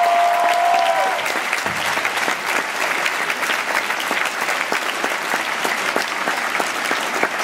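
Large theatre audience applauding, a dense sustained patter of many hands clapping. One voice holds a long whoop over the clapping for about the first second.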